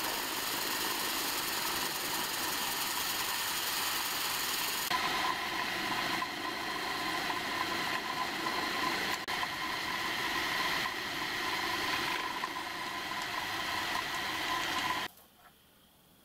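Milling machine running, its end mill cutting a slot in a metal block: a steady machining noise with a faint whine. It stops abruptly about a second before the end, leaving only faint background noise.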